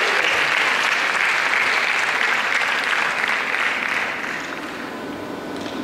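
Audience applauding, the clapping dying away about four seconds in and leaving a steady background hum.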